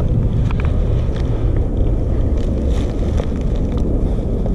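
Wind buffeting the head-mounted camera's microphone: a steady, loud low rumble, with a few faint ticks and rustles from dry leaves and twigs.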